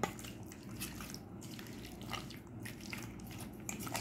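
Raw chicken pieces in a wet egg, flour and spice marinade being mixed in a metal bowl: faint, irregular squelching and sticky clicks.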